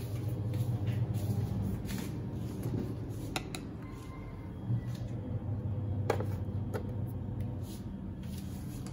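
Handling sounds as a small plastic tub is carried and set on a refrigerator door shelf: a few light clicks and knocks over a steady low hum.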